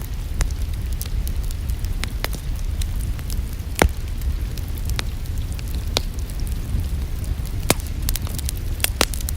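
Wood fire crackling in a fireplace: scattered sharp pops and snaps, the loudest about four seconds in, over a steady low rumble.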